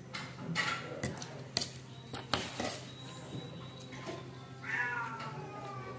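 Metal spoon clinking and scraping against a ceramic plate and bowl as sambal is scooped and spooned over rice, a handful of light clinks in the first three seconds. Near the end comes a short, falling, pitched sound.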